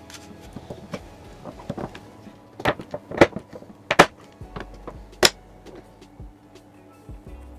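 A series of sharp knocks and clicks, with four loud ones in the middle about half a second to a second apart, over faint background music.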